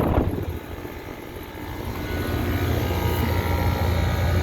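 Outdoor central air conditioner condenser unit running: a steady low compressor hum under the whir of the condenser fan. It dips in level about half a second in and builds back from about two seconds in.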